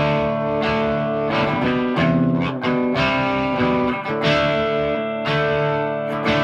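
Gibson Custom SG electric guitar playing chords through an amp, a new chord struck every second or so and left to ring, as it sounds before its setup.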